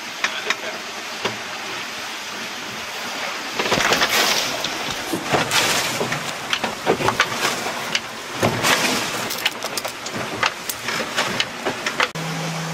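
Water rushing and splashing along the hulls of a Tricat 25 trimaran under sail in choppy sea, with wind and repeated sharp spray hits and slaps, loudest in bursts about four, five and a half, and eight and a half seconds in. A steady low hum starts just before the end.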